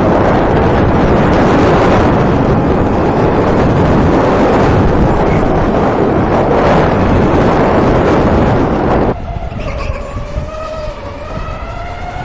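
Electric go-kart driving: a loud, steady rushing noise from the moving kart drops away suddenly about nine seconds in. After that the kart's electric motor is heard whining, its pitch rising and falling with speed.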